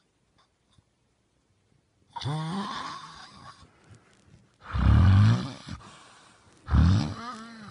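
A man snoring loudly in his sleep: three rasping snores about two seconds apart, starting about two seconds in.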